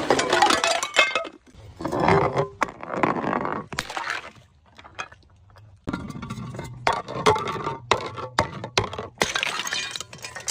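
Glass bottles shattering, with the clinking and crackling of broken glass. There are two crashes in the first few seconds, then a short lull, then a run of sharp cracks and crunches over a steady low hum.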